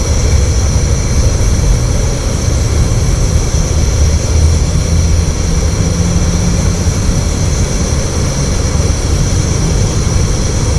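Petrol-fuelled liquid-fuel camping stove burning strongly under a pot of water, a loud, steady rushing roar of the burner flame.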